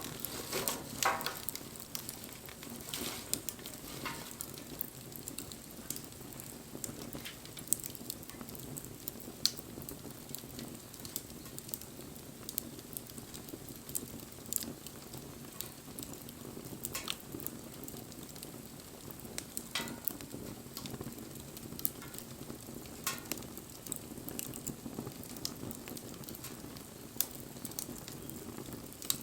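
Wood fire burning, crackling with scattered sharp pops over a steady low rush.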